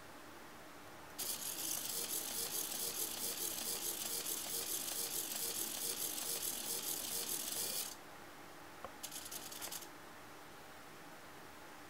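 Small hobby servos of a pan-tilt turret sweeping in a search pattern, their plastic gear trains giving a buzzing, fluttering rattle for several seconds, then a shorter burst near the end.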